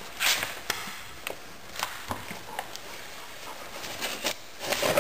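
Steel screwdrivers clicking and scraping against a dirt-bike tire and rim while prying under the lubed tire bead. There are a handful of sharp clicks, with a short scrape just after the start and another near the end.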